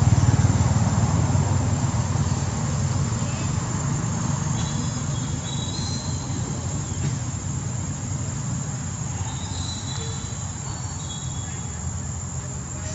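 Outdoor ambience: a steady high-pitched insect drone over a low rumble that slowly fades, with a few short high chirps about a third of the way in and again a little past the middle.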